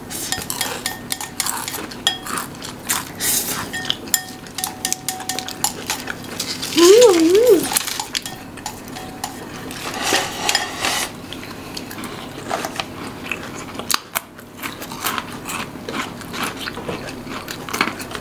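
Cutlery clinking and scraping against plates and bowls while people eat, in many small irregular clicks. About seven seconds in, a short hummed voice sound rises and falls twice.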